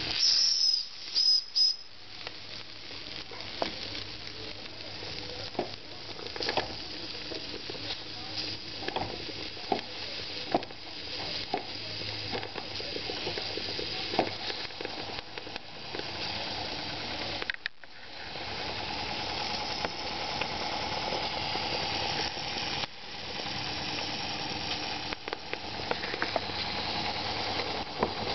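Live-steam model boat's boiler and twin-cylinder steam engine running out of water, giving a steady steam hiss with scattered clicks. There are a few short, loud high-pitched squeaks in the first two seconds.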